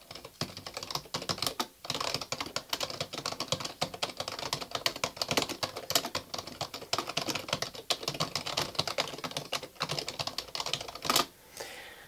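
Fast, continuous typing on a cheap wired full-size computer keyboard: a dense stream of key clicks, with a brief break about two seconds in, stopping near the end.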